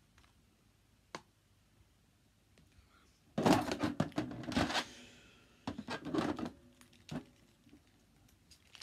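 Plastic wrestling action figures being handled and knocked against a toy wrestling ring: a quick flurry of clacks and thuds about three and a half seconds in, another cluster around six seconds, and a single knock near seven seconds.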